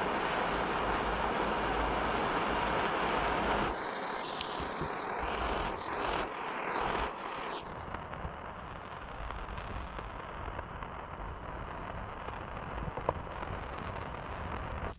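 Small butane cooking torch burning with a steady hissing rush of flame, used to melt polypropylene onto a plastic gas tank. The flame noise drops about four seconds in, wavers, eases again around halfway, and cuts off suddenly at the end.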